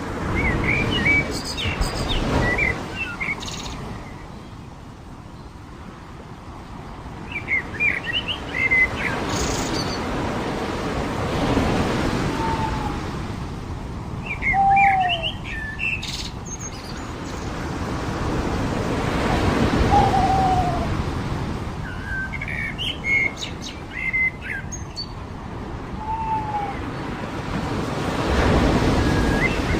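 Waves washing onto a beach, swelling and fading every eight to ten seconds, with small birds chirping in short clusters and a lower down-slurred call repeated a few times.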